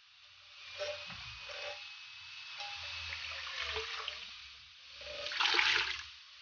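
Liquid poured from a bowl into a stainless steel stockpot, a splashing, gushing pour that is loudest about five seconds in, with lighter sloshing before it.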